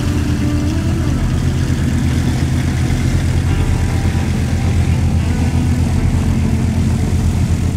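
Twin piston engines and propellers of a Partenavia P.68 running at low taxi power, a steady low propeller drone with an even beat.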